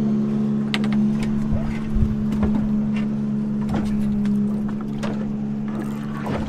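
Boat engine idling with a steady low hum, with scattered light clicks and knocks over it.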